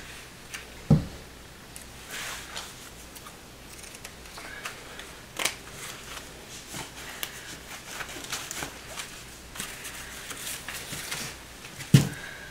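Handling sounds of drywall repair supplies: scattered rustles and small clicks, with two sharp knocks, one about a second in and one near the end.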